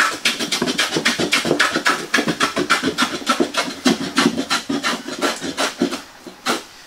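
A No. 5 hand plane with a slightly cambered iron cutting across the grain of a board in rapid short strokes, several a second, taking shavings. The strokes stop about six seconds in, with one last stroke just before the end.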